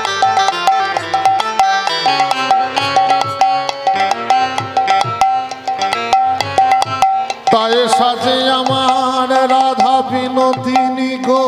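Instrumental interlude of Bengali kirtan music. A hand drum plays a quick rhythm under a short melodic phrase repeated again and again. About seven and a half seconds in, a held melody line with bending notes takes over.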